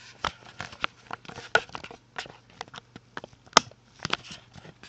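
Sparse, irregular clicks and taps, about a dozen, the sharpest about a second and a half in and about three and a half seconds in, over a faint steady hum.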